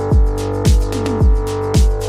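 Background electronic music with a steady kick-drum beat, about two beats a second, over a held synth tone and ticking hi-hats.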